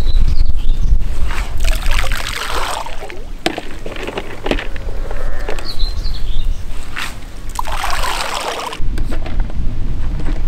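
Tiger nuts and corn being scooped from a bucket and flung out with a long-handled throwing spoon: two longer rattling, rustling stretches and a few sharp clicks of the spoon, over a steady rumble of wind on the microphone. A bird chirps faintly twice.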